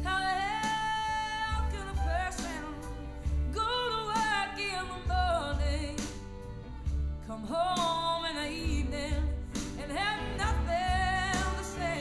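A woman singing a slow blues-country ballad in long, bending phrases over band accompaniment with steady bass notes, played back from an SACD through a home hi-fi system's loudspeakers.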